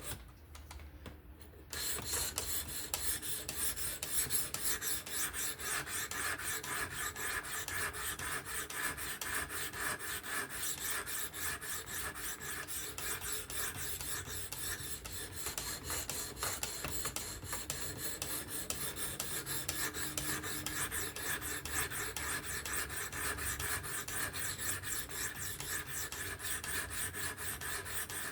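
A 600-grit plate on a Work Sharp Professional fixed-angle sharpener stroked rapidly and evenly along the edge of a Spyderco Kapara's S30V blade, working the second side. A steady, rhythmic scraping rasp that starts about two seconds in.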